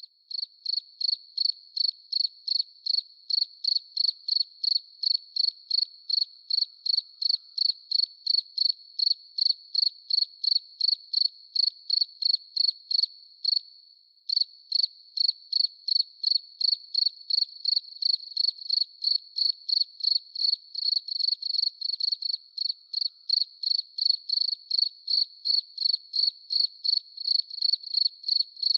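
Crickets chirping in a steady, even rhythm of about two to three high-pitched chirps a second, with a fainter continuous trill underneath and a short pause about halfway through.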